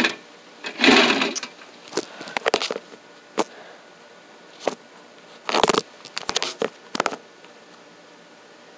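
Handling noise from a phone being held and set in place: irregular knocks, taps and rubbing on the microphone, with louder rustling bursts about a second in and a bit past halfway.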